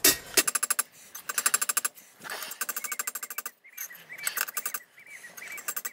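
Quick runs of light hammer blows on a steel anvil, each blow ringing, as a railroad spike knife blade is straightened.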